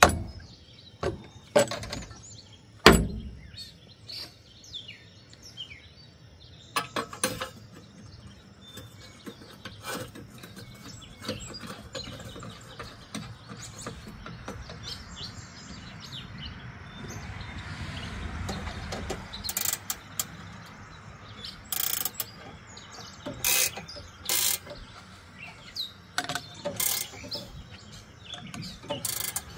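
Scattered sharp metal knocks and clunks, with a stretch of scraping in the middle, as a heat-wrapped exhaust pipe is worked by hand into its expanded joint under a pickup truck. Songbirds chirp in the background.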